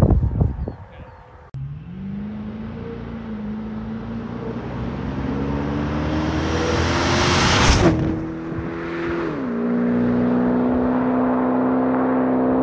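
A car accelerating hard toward and past the microphone. Its engine note climbs steadily, a rush of noise peaks a little past halfway as it passes, then the pitch drops and holds as it goes away. A few low thumps in the first second and a half.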